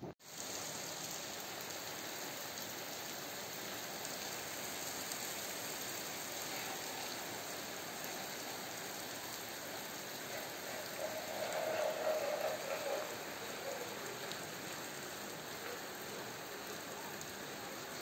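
Steady heavy rain falling on a concrete courtyard and the standing water pooled on it. A faint, brief sound rises above the rain about two-thirds of the way through.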